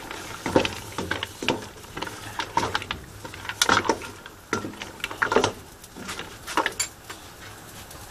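A spoon or ladle stirring a pot of boiling peanut sauce, with irregular clinks and knocks against the pot, some ringing briefly.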